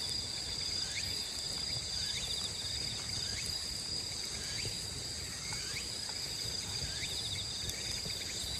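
Steady chorus of crickets and other insects trilling, high-pitched, with a fast pulsing trill underneath and short chirps about once a second.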